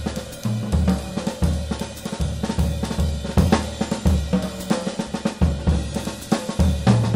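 Jazz drum kit taking a solo break, playing snare, bass drum, cymbals and hi-hat in swing time while the piano rests.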